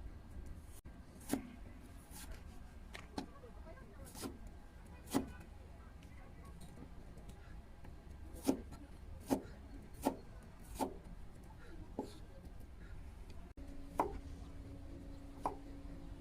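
Kitchen knife cutting a cucumber on a cutting board: separate sharp knocks of the blade striking the board, at an uneven pace of roughly one a second.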